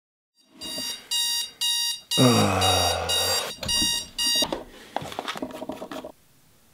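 Alarm beeping in short, evenly spaced bursts, about two a second, with a man's long groan falling in pitch in the middle. Near the end come small clicks and handling noises as a guard is fitted onto a beard trimmer.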